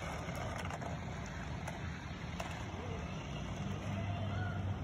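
Steady outdoor background noise, with a low motor hum coming in about three and a half seconds in.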